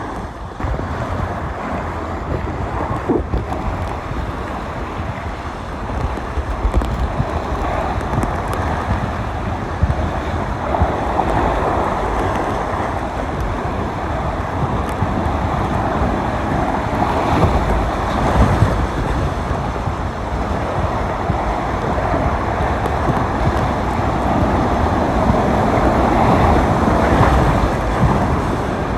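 Rushing water and wind buffeting the microphone during a ride down an open tube water slide: a loud, steady rush with a heavy low rumble.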